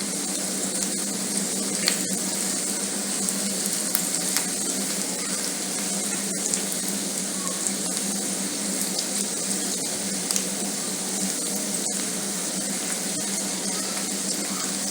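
Cabbage, egg and flour batter frying in oil in a pan: a steady sizzle with scattered small pops.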